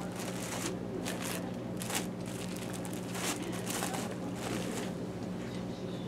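Plastic bread bags crinkling and rustling several times as loaves are handled and stacked into a shopping cart, over a steady low hum.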